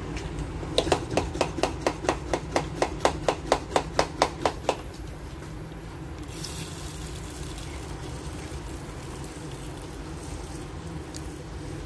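Handheld water sprayer: about fourteen quick, even pumping strokes at roughly three or four a second, then from about six seconds in a steady hiss as a fine jet of water sprays onto the potting soil.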